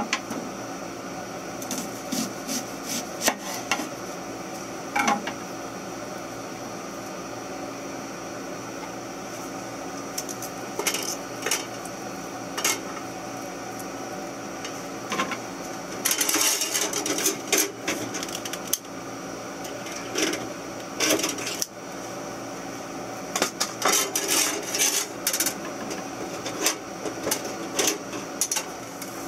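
Chef's knife knocking and tapping on a wooden cutting board as a red onion is sliced, in scattered strokes with two quicker runs, one a little past the middle and one near the end, over a steady hum.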